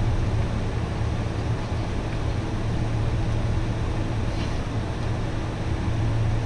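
Steady cabin drone of a Boeing 747 taxiing, heard from inside the passenger cabin: engine and rolling noise with a strong, even low hum.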